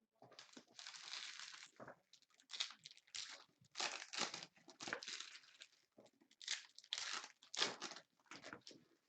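Trading card pack wrappers being torn open and crinkled by hand, in a run of irregular rustles and crackles with short pauses.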